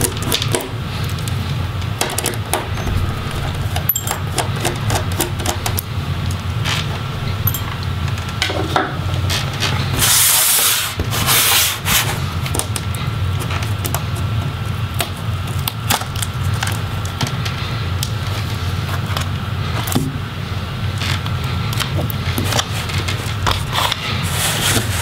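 Hand-work on a Dell Latitude 5580 laptop's display assembly: scattered clicks and rubbing of plastic and metal as small screws are loosened with a screwdriver and the LCD panel is lifted from the back cover. A louder scraping rustle comes about ten to twelve seconds in as the lid is shifted on the table. A steady low hum runs underneath.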